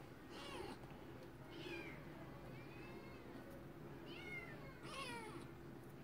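Kitten meowing about five times in a row: high-pitched calls that mostly fall in pitch, with one longer, arched meow near the middle.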